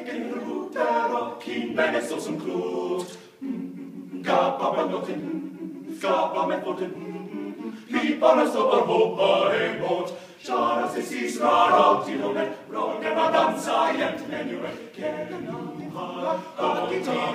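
Male a cappella group singing, several voices together in harmony with no instruments. Two brief dips between phrases, about three and a half and ten and a half seconds in.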